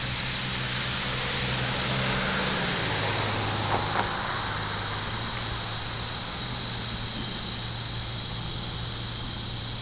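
A motor vehicle passing by outdoors, its low engine hum dropping in pitch about three seconds in, over a steady hiss. Two short clicks come just before four seconds in.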